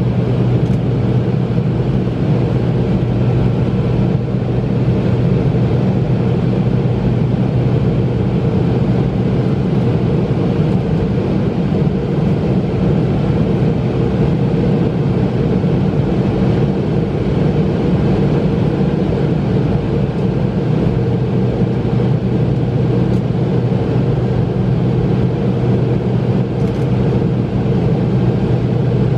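Steady cabin drone of a McDonnell Douglas MD-88 airliner in flight: its rear-mounted Pratt & Whitney JT8D turbofans humming low under a constant rush of airflow, heard from a seat over the wing.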